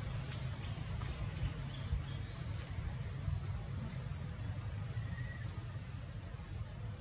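Outdoor ambience: a steady low rumble like wind on the microphone, with a faint high steady tone and a few brief, faint high chirps in the middle.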